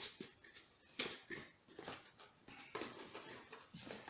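Small cardboard box being handled and opened by hand: irregular rustling and scraping of cardboard and paper packing, with a sharp tap about a second in.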